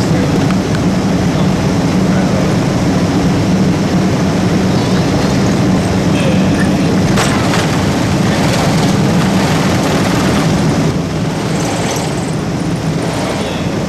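Jet airliner cabin noise while the aircraft moves on the ground: a steady, loud drone of the engines with a strong low hum, easing off a little about eleven seconds in.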